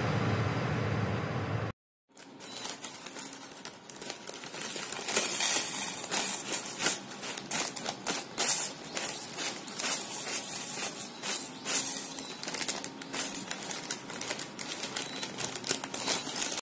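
Corn flakes poured from their plastic inner bag onto a plate: a long run of dry, irregular crackling and crinkling. It starts after intro music cuts off about two seconds in.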